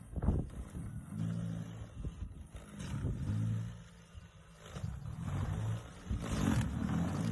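MasterCraft 2x20V brushless cordless snow blower running, its low motor-and-auger drone rising and falling as it loads up. There is a sharp knock just after the start.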